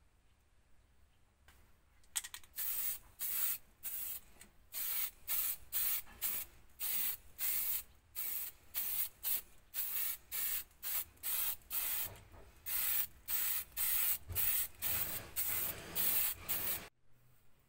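Aerosol can of heat-resistant black high-temperature enamel spraying in short hissing bursts, about two a second. It starts about two seconds in and cuts off near the end.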